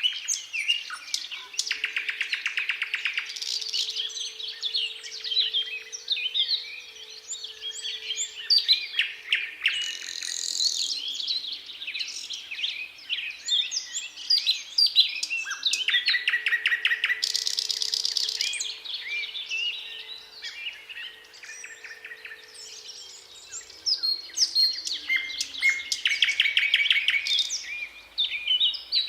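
A nightingale sings loud, varied phrases broken up by fast rattling trills. Beneath it a faint siren sounds twice, each time holding one steady tone for several seconds and then slowly falling away.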